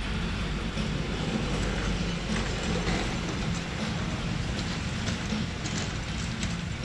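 Hydraulic car lift lowering a hatchback: a steady low rumble with irregular clicks and clacks.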